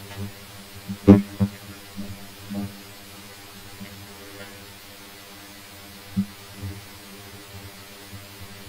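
Steady electrical hum, a buzzy stack of low tones, with a few short clicks about a second in and again around six seconds.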